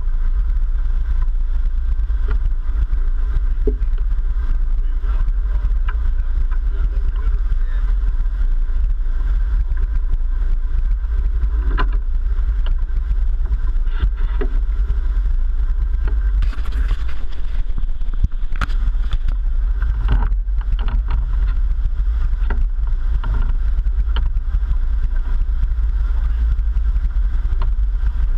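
Sportfishing boat under way, its engines running steadily with a heavy low rumble and water rushing past the hull. A few sharp knocks in the middle.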